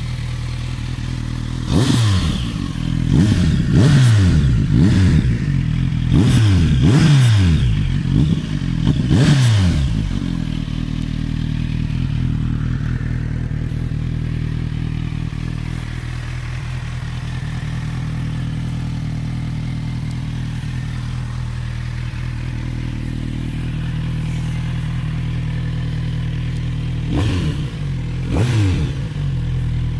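Kawasaki Z900RS inline-four through its stock exhaust, idling steadily and blipped through a quick series of revs, each rising and falling back to idle. After a long stretch of idle, it is blipped twice more near the end.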